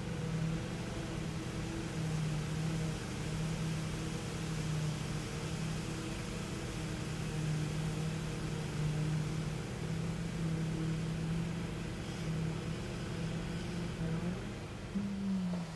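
Steady engine drone from machinery at a concrete pour, one held tone that wavers slightly, with a brief pitch glide about a second before the end.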